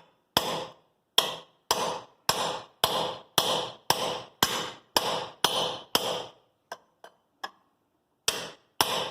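Hammer blows on a steel cold chisel driven into a seized joint of a Ford Ranger front axle: about a dozen sharp, ringing metal strikes at roughly two a second. After them comes a short pause with a few light taps, then the strikes start again near the end.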